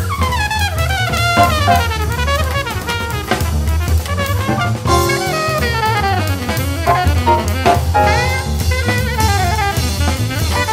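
Jazz music, brass playing quick melodic runs over a drum kit.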